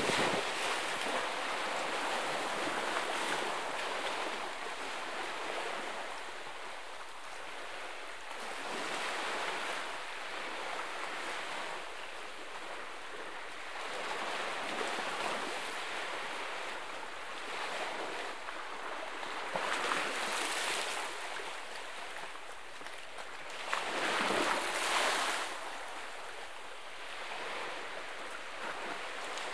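Small waves washing against a rocky shoreline, the wash swelling and falling back every few seconds, with a few louder surges, the strongest late on.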